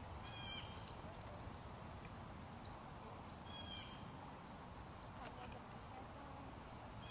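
Faint outdoor ambience: a steady thin high whine with light ticks scattered through it, a short chirp that comes back about every three seconds, and a low rumble of wind.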